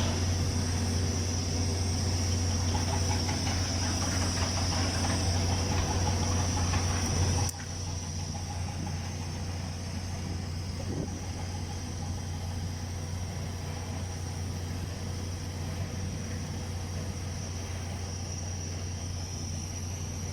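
Steady low hum and hiss of welding equipment running during TIG welding of pipe, with a high thin whine over it. About seven and a half seconds in, the sound suddenly gets quieter and then runs on steadily.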